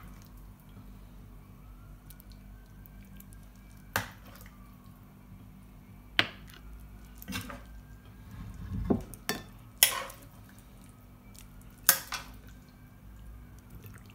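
Metal serving spoon clinking and scraping against a ceramic plate and the cooking pan as stew is ladled out. There are about six sharp separate clinks, a second or two apart, with a duller knock just before 9 s.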